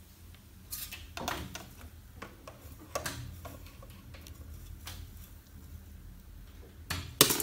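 Horizontal venetian blinds being handled by their cords: scattered light clicks and rattles of the slats. Near the end a louder clatter as something falls.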